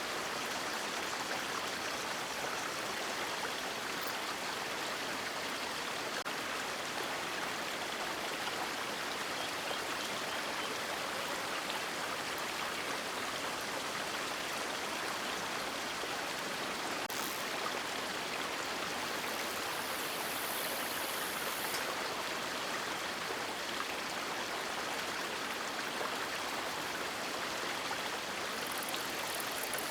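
River water flowing: a steady, even rushing of running water that does not change.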